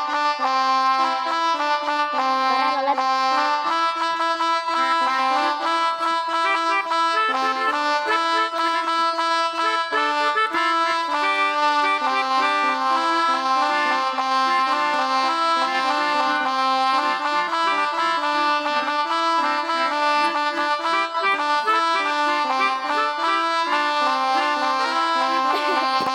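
Pianica app on a phone playing a telolet bus-horn tune: reedy held notes stepping up and down without a break, two notes sounding together.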